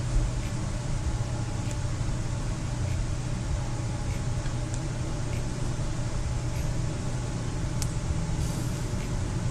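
Steady low hum of a household appliance running, with a few faint clicks scattered through it.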